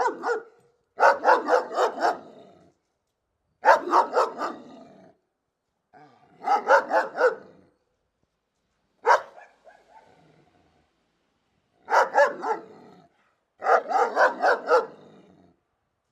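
Big dog barking close up in repeated volleys of three to five quick barks, about four a second, separated by short pauses, with one lone bark near the middle.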